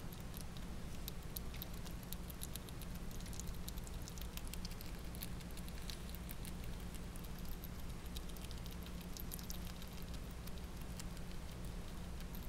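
Pet rat nibbling a macaroni noodle held in its paws: a rapid, uneven stream of faint small clicks and smacks of chewing, over a steady low hum.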